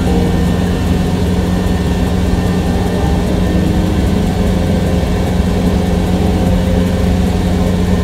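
Rice combine harvester running steadily as it cuts standing rice: a constant low engine drone with the machinery of the cutting header working.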